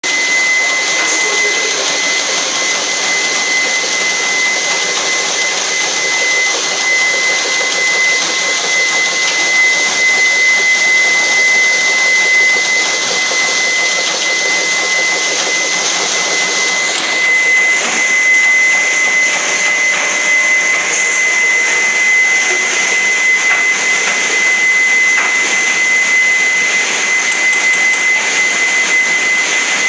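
Four-spindle PCB CNC drilling machine running while it drills a stack of circuit boards: a steady high whine over a loud, even hiss, with the hiss shifting a little about halfway through.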